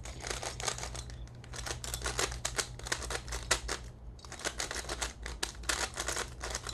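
Plastic speed cube being turned by hand, its layers clicking and clacking in rapid, uneven runs with short pauses. The cube is stiff and freshly lubricated.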